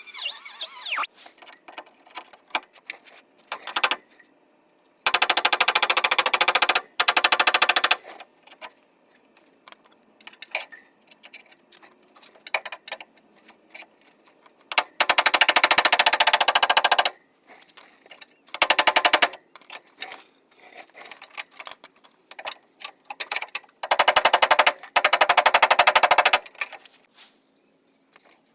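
A power tool runs in short bursts with a rapid rattle, four main bursts of one to two seconds each. Small clicks and clanks come between them.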